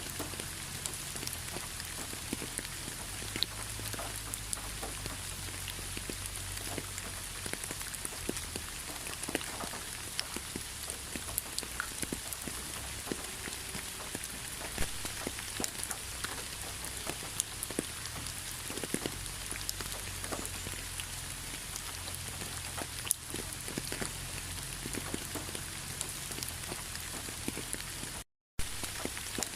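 Rain falling steadily, a constant hiss dotted with many separate drops ticking on a surface. It cuts out for a moment near the end.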